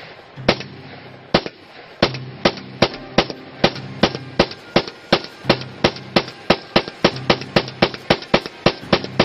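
Semi-automatic 300 Blackout AR pistol with an 8-inch upper, firing about two dozen quick shots. The pace quickens from about one shot a second to three or four a second.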